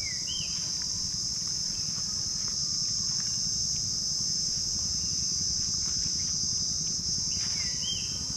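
A steady, high-pitched insect drone from the trees, with a short, curling bird call at the start and the same call again near the end.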